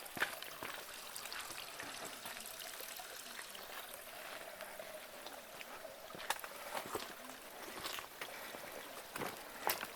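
A mountain stream running steadily, with scattered footsteps of a hiker on the trail.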